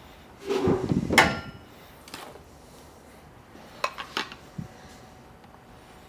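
Ceramic mug and plastic V60 dripper knocking as they are handled: a loud knock with a short ringing about a second in, then a few lighter knocks a little before the five-second mark as they are set back down on the scale.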